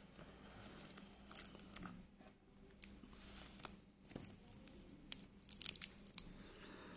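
Faint handling noise as a steel-bracelet wristwatch is lifted out of its box in cloth gloves: soft rustling of fabric with scattered small clicks and clinks of the bracelet links, a run of sharper clicks about five to six seconds in.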